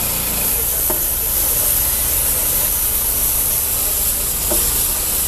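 Portable sawmill running: a steady engine drone under a constant high hiss.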